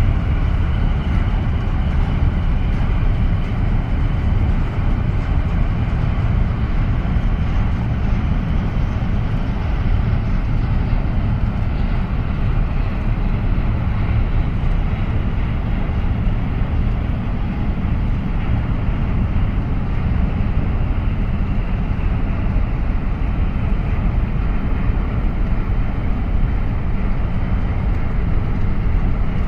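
Steady low rumble from a large container ship passing close by under way, unbroken, with a faint higher drone above it.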